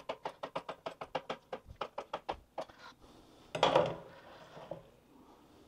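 A kitchen knife chopping on a plastic cutting board in a quick even run, about six strokes a second, stopping after nearly three seconds. About a second later comes one louder scrape as the cut pieces are pushed off the board into the pot.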